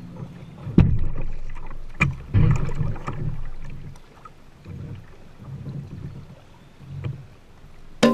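Kayak paddling: uneven paddle strokes in the water, with a few sharp knocks in the first two seconds.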